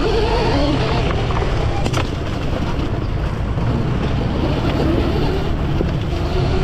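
Electric dirt bike with a QS138 brushless motor ridden on a trail: a steady rumble of wind and rough ground, with a faint motor whine that rises and falls in pitch.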